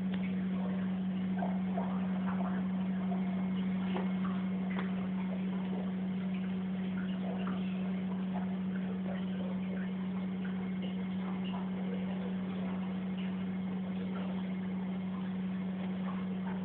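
Steady, unbroken low hum of running aquarium equipment, with faint scattered small ticks over it.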